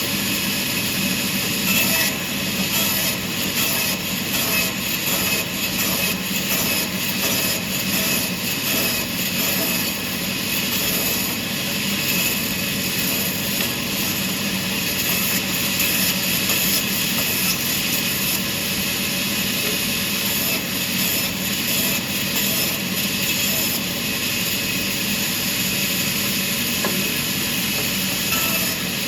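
Sawmill machinery running steadily while cutting wood: a constant hum and high whine, broken by frequent short knocks and clatters.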